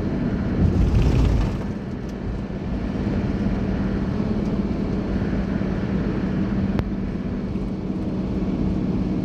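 Steady road noise inside a moving car's cabin: engine hum and tyre rumble at speed, with a louder low rumble for about a second near the start.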